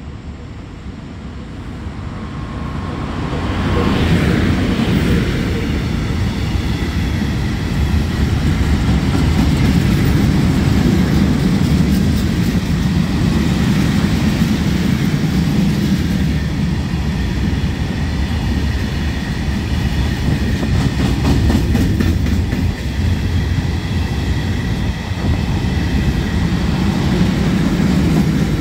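An ET22 electric locomotive hauling a freight train. It grows louder as it approaches and passes about four seconds in. Then comes the steady rumble and clickety-clack of open freight wagons rolling past over the rails.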